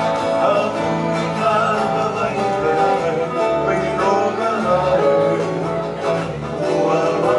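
Modern Hawaiian hula music played on guitar and ukulele, a steady strummed accompaniment over changing low notes.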